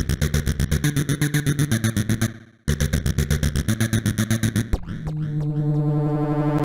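Roland System-100 software synthesizer playing a fast repeating sequence of short, pitched notes, about ten a second, that drops out briefly about two and a half seconds in and then resumes. Near the end it gives way to one steady held note.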